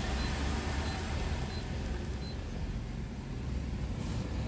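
Steady low hum inside a Daihatsu Sirion's cabin, with faint short high beeps about every 0.7 seconds that stop a little over two seconds in.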